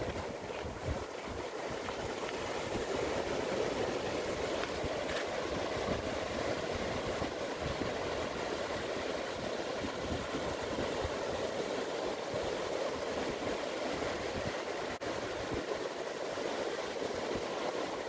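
Surf breaking and washing up a sandy beach: a steady, even rush of waves.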